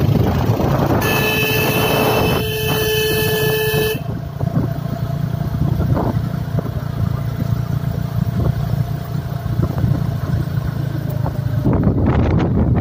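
Motorcycle running along a road with a steady low engine hum and wind noise, and a vehicle horn sounded once in a long blast from about one second in, lasting about three seconds.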